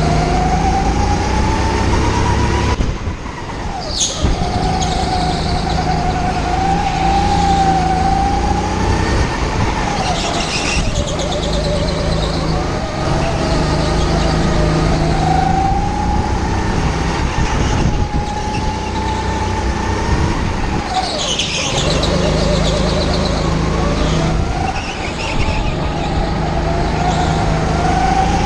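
Rental go-kart's motor running flat out around an indoor track, its pitch climbing along the straights and dropping four times as the kart slows for corners. A brief sharp high sound comes about four seconds in.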